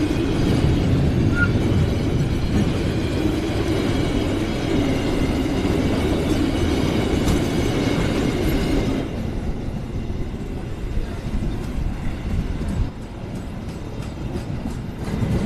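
Train of rail tank wagons passing close by, with a steady loud rumble of wheels on rails. About nine seconds in the rumble drops away to a quieter run of wheel clicks over the rail joints.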